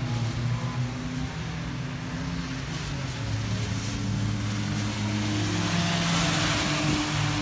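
Small race-car engines running on a wet track, their pitch rising and falling as cars accelerate and slide through the corner, with more than one engine heard at once. A hiss of tyres through standing water grows louder from about five seconds in as the next car approaches.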